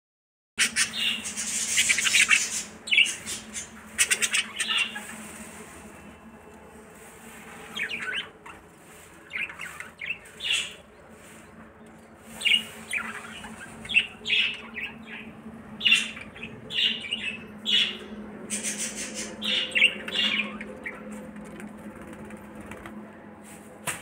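A flock of budgerigars chattering, with many short, high chirps and squawks throughout. A burst of wing flapping comes in the first couple of seconds.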